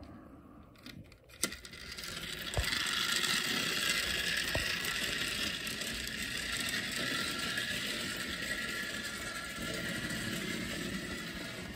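Lima CRICK clockwork toy locomotive's spring motor, built mostly of plastic, whirring steadily as it runs pulling its cars around the track. A click about a second and a half in comes just before the whirring starts.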